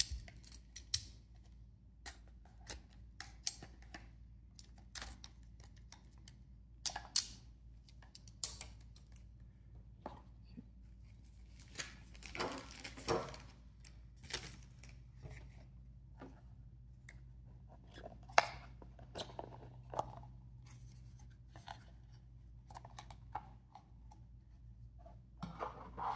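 A cardboard trading-card box being cut open and handled by hand: scattered sharp clicks and taps, with a longer tearing, scraping stretch about twelve seconds in.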